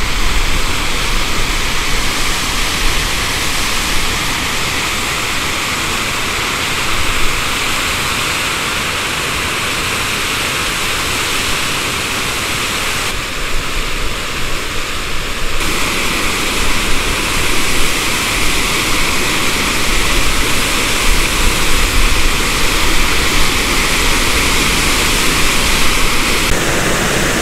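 Powerful mountain-river waterfall roaring: a loud, steady rush of falling water, its tone shifting a little around the middle and near the end.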